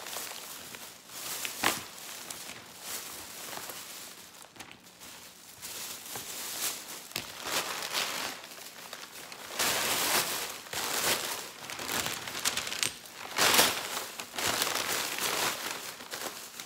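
Crumpled packing paper being gathered up and scrunched in the hands, crinkling and crackling in irregular bursts, loudest about ten and thirteen seconds in.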